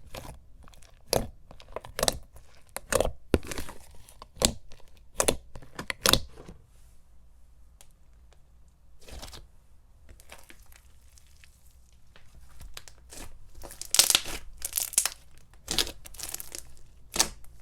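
Thick, glossy, bubbly white glue slime with styrofoam pieces being pressed and stretched by hand, making sharp pops and crackles. The pops come about once a second at first, fall quiet in the middle, then come in a quicker run near the end.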